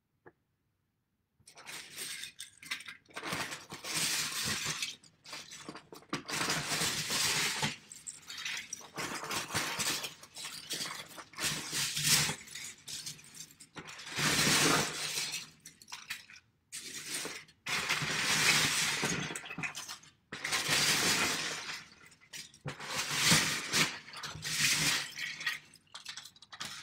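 Hands rummaging through a bin of loose plastic Lego bricks, the pieces clattering in repeated bursts of a second or two, starting about a second and a half in.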